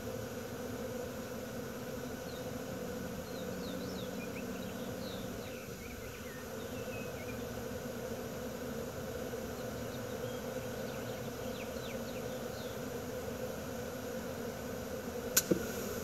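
Honeybee swarm buzzing steadily around a hive. A single sharp click near the end.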